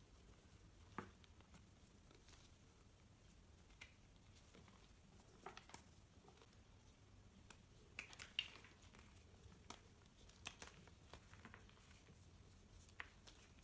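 Pink reformed gym chalk crumbled and crushed between bare hands: soft, crumbly crunches and crackles at irregular intervals, the loudest cluster about eight seconds in.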